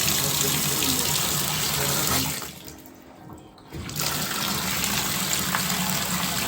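Water gushing from a bathtub spout at strong flow, after the diverter has been replaced to cure slow, low running water. The rush drops away for about a second and a half midway, then comes back at full flow.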